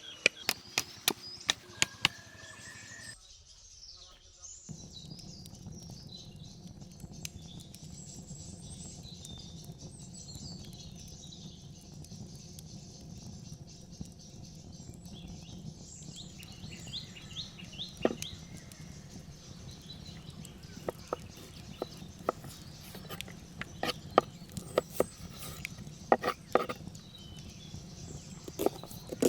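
Birds chirping over a steady low hum, with scattered sharp clicks and knocks that come thickest in the last third.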